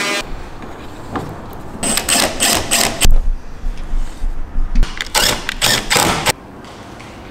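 Makita 18V cordless driver running in short rattling bursts, driving screws into a steel door hinge, with a loud knock about three seconds in. The tool stops abruptly near the end.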